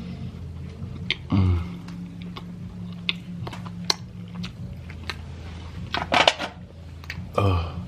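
A person eating, with scattered mouth clicks and smacks while chewing and two short low murmurs, over a steady low hum.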